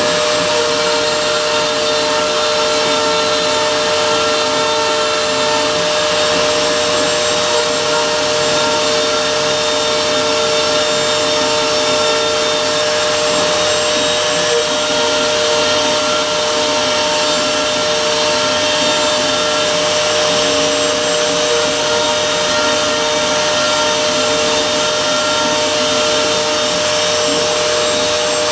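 CNC router spindle running steadily while milling, a loud, even whine that holds one pitch.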